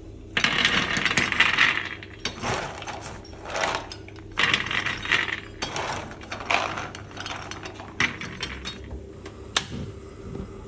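Whole roasted hazelnuts poured from a metal scoop onto a metal baking tray: several scoopfuls, each a burst of rattling clatter as the nuts hit and roll on the tray. A single sharp click comes near the end.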